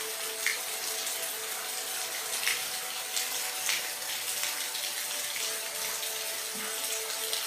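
Steady rain falling: a dense, even hiss of drops, with a few sharper drop splashes standing out here and there.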